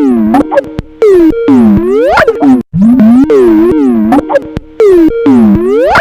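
The Skype ringtone, heavily distorted and pitch-warped: its pitch swoops down and back up over and over, very loud, with a brief cut-out about halfway through.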